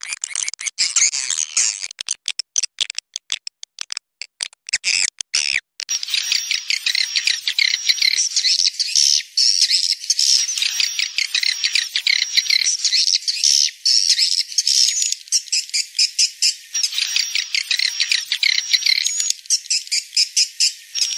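Swiftlet lure recording: dense, high twittering chirps of edible-nest swiftlets mixed with a rapid fluttering of wingbeats, the 'wing-flap' call sound made up from roost recordings and used to draw swiftlets into a bird house. A thin high whistle recurs in short strokes, and the sound breaks into brief gaps in the first few seconds.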